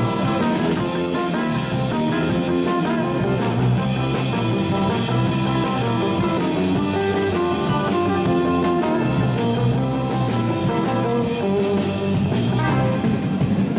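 Live rock band playing instrumentally: two electric guitars through amplifiers, electric bass and a drum kit. Near the end the guitars drop back and the drums come forward.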